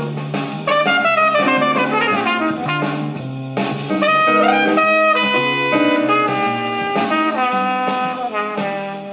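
Recorded jazz with brass instruments playing over a pair of hi-fi loudspeakers built with Philips AG9014 and AD3800AM drivers, heard in the room; it eases off slightly toward the end.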